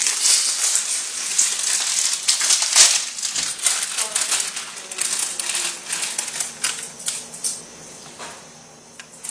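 Packaging being handled, crinkling and crunching in a rapid crackle that is loudest in the first few seconds and thins out toward the end.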